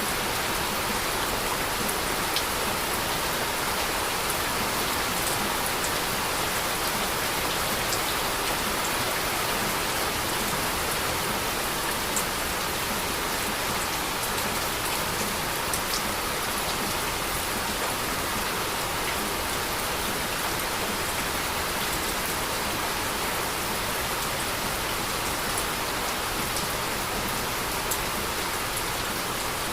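Steady heavy rain falling on surfaces, an even wash of noise with scattered individual drops ticking through it.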